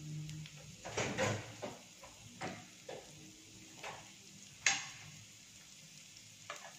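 Garlic and spices frying lightly in a small nonstick pan over a low gas flame, broken by several scattered clicks and knocks, the sharpest about two-thirds of the way through.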